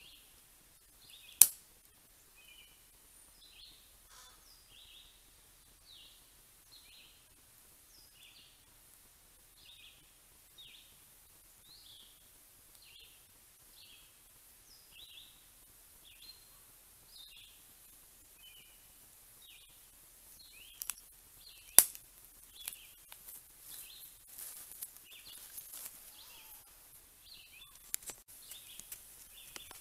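A songbird chirping repeatedly, short high notes about once a second or faster. Two sharp, loud clicks stand out, one near the start and one about two-thirds through, and from about two-thirds in faint crackling and ticking sets in as the pile of clothes catches fire.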